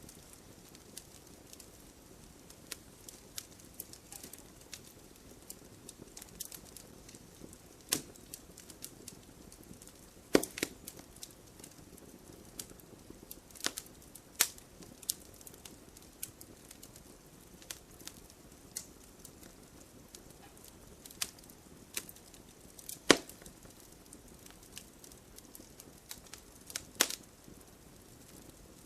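Wood fire crackling in a fireplace: scattered sharp snaps over a faint steady hiss, with two louder pops, one about ten seconds in and one about twenty-three seconds in.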